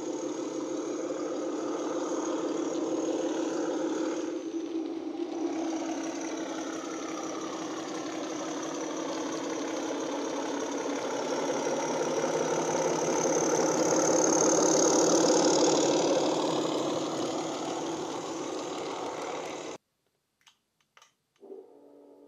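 Class 31 diesel engine sound from an ESU Hifi DCC sound decoder, played through the model locomotive's onboard speaker as it runs. It grows louder to a peak, then cuts off abruptly near the end. A few faint clicks follow, then a faint steady hum.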